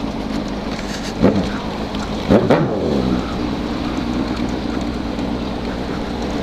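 Honda CB1000R inline-four motorcycle engine running under way with wind noise, revved sharply twice: a quick blip about a second in and a bigger rev about two and a half seconds in that falls back off.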